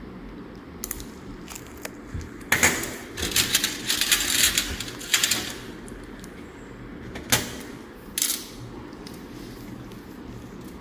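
Steel surgical instruments clicking and clinking: a quick run of sharp metallic clicks lasting about three seconds, then two single clicks a second apart, over a low steady room hum.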